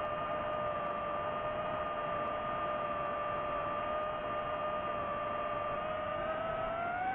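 DJI FPV drone's motors and propellers whining at a steady pitch in flight, a two-toned hum over a rushing hiss; near the end the pitch rises as the motors speed up.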